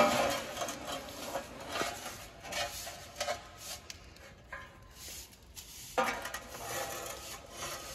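Irregular light clinks, knocks and scraping, like hard objects being handled. There is a sharp clack at the very start and another knock about six seconds in.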